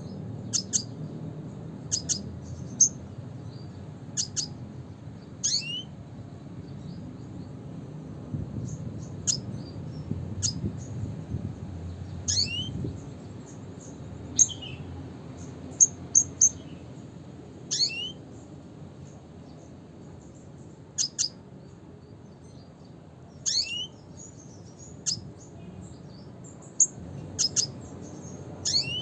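Red siskin (Spinus cucullatus) giving short, high chirping calls at irregular intervals of a second or two. Some are sharp single notes and several fall quickly in pitch, over a steady low background hum.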